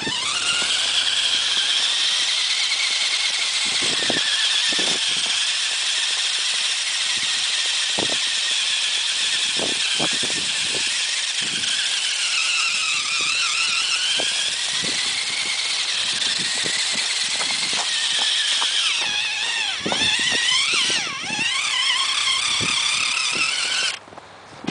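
Three-wheeler ATV engine running hard with a high whine. Its pitch dips and climbs again about halfway through and wavers near the end, over scattered knocks and rattles, then the sound cuts off suddenly near the end.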